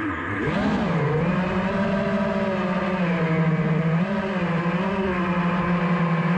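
FPV freestyle quadcopter's brushless motors and propellers whining as it flies, heard from the camera on board. The pitch dips and climbs back in the first second, then holds fairly steady with small steps up and down.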